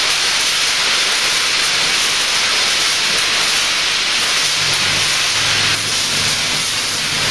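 Multihead weigher running with IQF frozen product flowing through its stainless steel feeders and hoppers: a loud, steady hissing rush.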